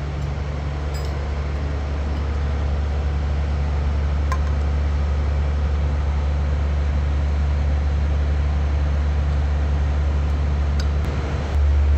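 Steady low machine drone with hiss, holding even and stepping up louder just before the end.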